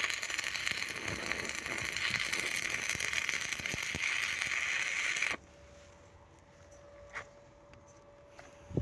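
Stick (MMA) welding arc crackling steadily as the electrode burns along the seam, then cutting off abruptly about five seconds in as the arc is broken. After that only a faint steady hum and a couple of small clicks.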